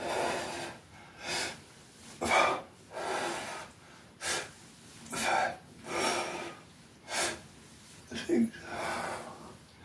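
A man's heavy exertion breathing during a set of resistance-band overhead shoulder presses: short, forceful, noisy breaths, about one a second.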